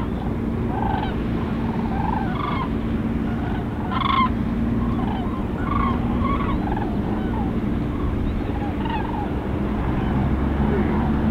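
A large flock of migrating birds calling as it flies over, with many short calls overlapping at irregular intervals, over a steady low hum.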